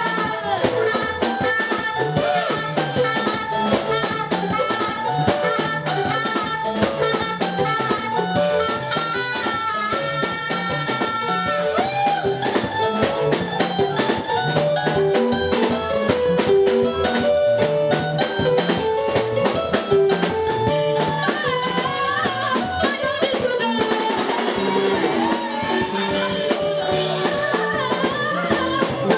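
Live church worship band music with a steady drum-kit beat, guitar and keyboard notes.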